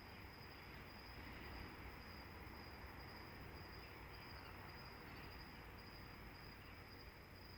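Faint, steady high insect trill over a low background rumble.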